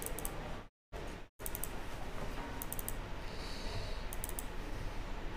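A few short runs of soft clicks from a computer mouse over steady room hum. The audio cuts out briefly under a second in.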